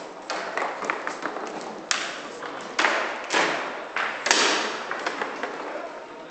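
Sharp knocks and clacks of foosball play, balls and rods striking table walls and goals, echoing in a large hall. The loudest knocks come in a cluster around the middle, each trailing off in a long echo.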